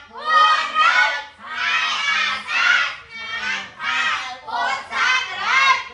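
Class of boys and young novice monks reading the board aloud together in a sing-song chant, phrase by phrase, with short pauses between phrases.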